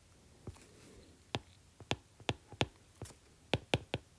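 Stylus tapping and clicking against a tablet screen during handwriting: a string of sharp, irregular clicks, bunched closer together near the end.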